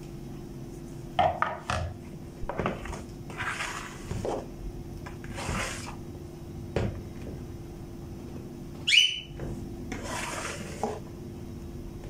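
A glass cup knocking and scraping in a plastic bowl of flour, with a few soft scooping rustles, over a steady low hum. A short, sharply rising squeak about nine seconds in is the loudest sound.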